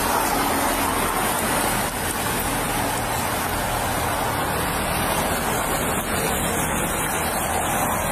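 Steady roadside traffic noise heard through a police body-worn camera: a constant even hiss with a low engine hum underneath, from vehicles running and passing on the highway.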